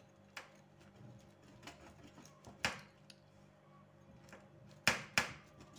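A utensil tapping and clicking against the metal baking tray while a baked pizza is cut into portions: a few sharp knocks spread out, the loudest two close together near the end.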